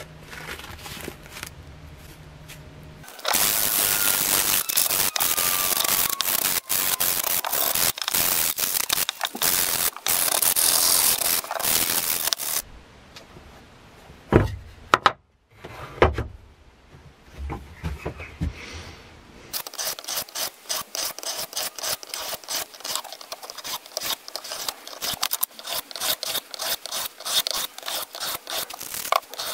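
A folding machete's steel blade rubbed hard with sandpaper discs: a loud, steady scratchy rasp for several seconds. Midway come a couple of sharp thuds as a sharpening stone is set on the wooden bench, then the blade is stroked back and forth along the whetstone, about two to three strokes a second.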